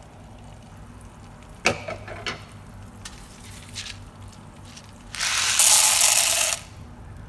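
Dried popcorn kernels poured into a pan of melted butter and oil: a loud rattling rush lasting about a second and a half near the end. A few sharp clicks about two seconds in.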